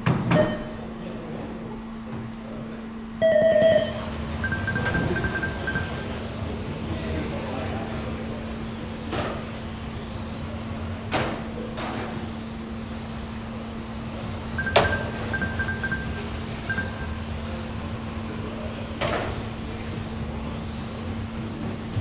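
Race-timing countdown beeps ending in a long start tone about three seconds in, then 1/12-scale GT12 electric RC cars running, their motors whining up and down in pitch. Several sharp knocks and short bursts of high electronic beeping come through over the car noise.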